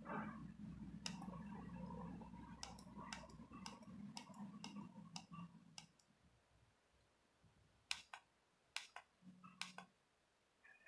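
Faint, sharp clicks of the keypad buttons on an AV7716I video borescope's handheld display unit as they are pressed, a dozen or so, the later ones in quick pairs. A low hum underneath stops about six seconds in.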